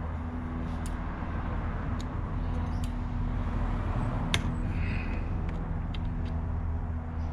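Steady low engine hum from a running vehicle, with a few sharp metallic clicks from a bicycle derailleur and hanger extender being fitted; the loudest click comes about four and a half seconds in.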